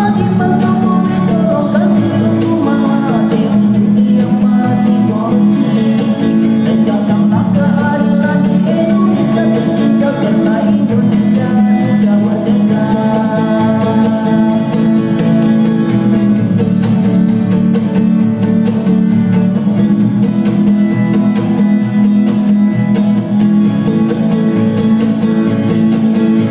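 A man singing to a strummed acoustic guitar, his voice without added effects.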